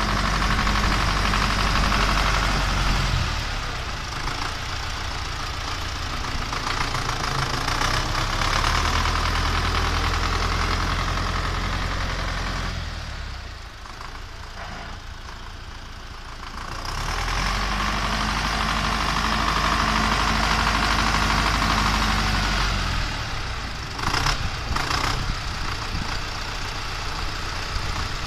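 Diesel engine of a heavy snow-clearing vehicle working, its revs rising and easing off twice, quietest a little past the middle. A few sharp knocks sound near the end.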